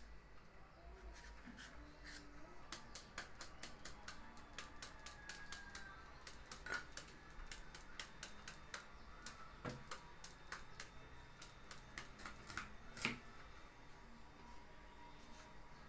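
Large kitchen knife hacking rapidly into a hand-held carrot and green papaya to shred them: light taps several a second, with a few louder knocks.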